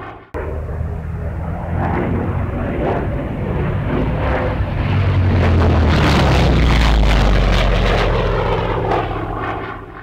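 Recorded engine of a full-size propeller airplane in flight: a steady low drone, cut off for a moment just after the start, that swells to its loudest past the middle and fades away at the end.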